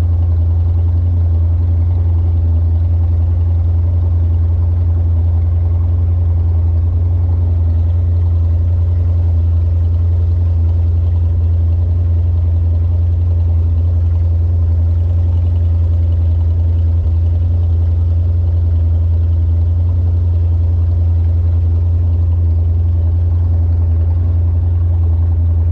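Jet boat's engine running at a steady speed: a loud, deep, even hum that does not rise or fall.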